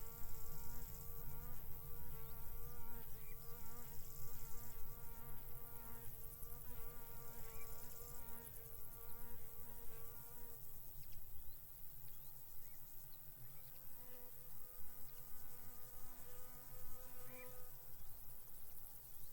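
A flying insect buzzing, a steady, slightly wavering hum that goes on for about ten seconds, stops, and comes back briefly a few seconds later. A low rumble of wind sits underneath.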